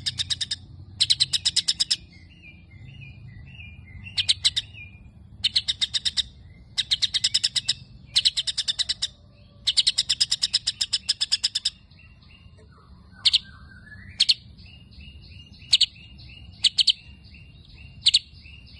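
Young white-rumped shama (murai batu) singing sparrow-like chatter. Several fast rattling trills of sharp chirps, each about a second long, give way in the second half to single sharp notes over softer repeated calls.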